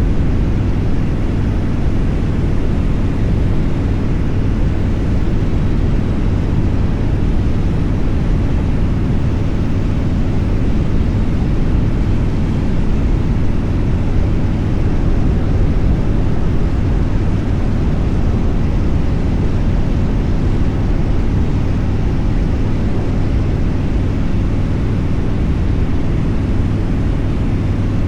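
Motorcycle engine running steadily at highway speed, with wind rushing over the microphone.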